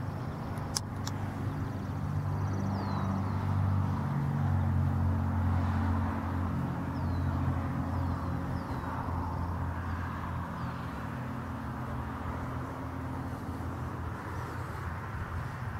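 A steady low engine hum, strongest in the first half, with a few short high falling chirps and one sharp click about a second in.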